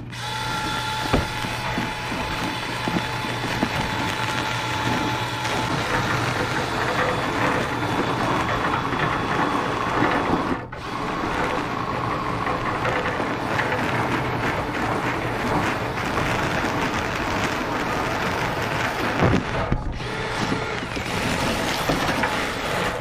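Drill-driven rotary brush spinning inside a clogged dryer vent duct: a loud, steady whirring and rushing over a constant motor hum, dipping briefly twice, about ten and twenty seconds in.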